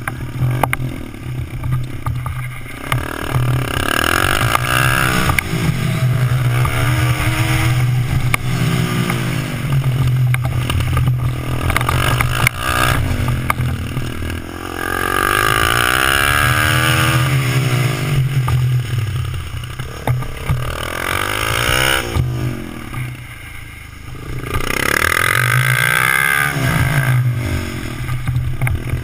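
Small Suzuki motorcycle engine revving up and falling back over and over while being ridden hard through turns, dropping briefly to a quieter, lower note about three-quarters of the way through.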